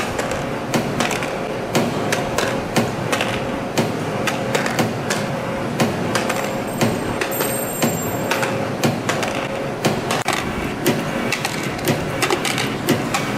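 CNC compression spring coiling machine running, forming 0.8 mm wire into springs, with a sharp metallic click about every three-quarters of a second over its steady mechanical running noise.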